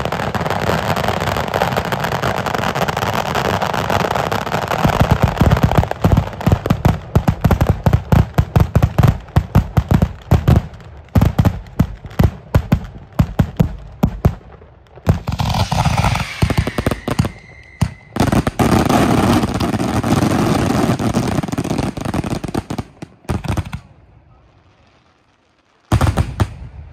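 Sicilian ground fireworks battery (batteria alla lucchese) going off: a dense, continuous crackle of firecrackers, breaking about five seconds in into a rapid run of separate loud bangs. A second dense stretch follows and dies away, then one last loud blast near the end.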